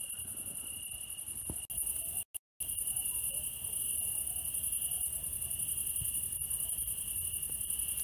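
A night chorus of crickets chirring steadily in two high-pitched layers. The sound cuts out for a moment a little after two seconds.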